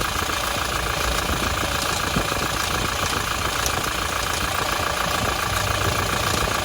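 Toyota Hilux 1GD-FTV 2.8-litre four-cylinder turbodiesel idling steadily with a fast, even rattle over the engine note. The rattle is the timing chain noise that some 1GD-FTV engines develop, a sign that the timing chain is due for replacement.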